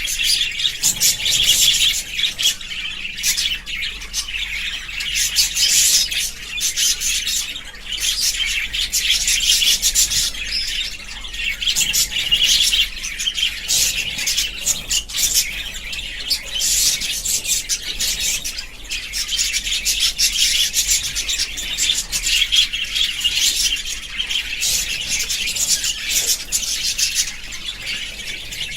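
Budgerigars chirping and chattering continuously, many quick overlapping high chirps and warbles with no pause.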